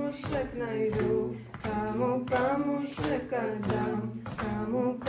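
A woman sings a slow song with drawn-out, bending notes, clapping her hands in a steady beat about once every two-thirds of a second.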